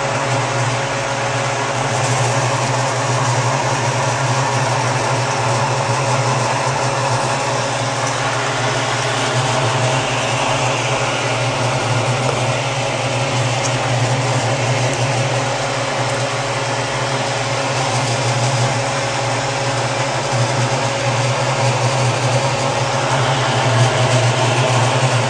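Steady mechanical running noise with a strong low hum, unchanging throughout.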